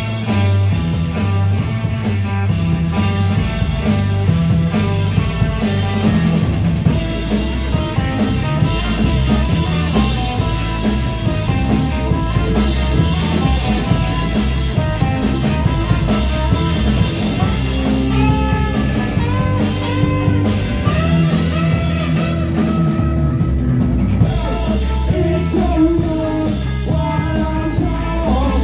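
Live ska band playing loud, with drum kit, electric guitar and bass driving a steady beat and a singer's voice over the top.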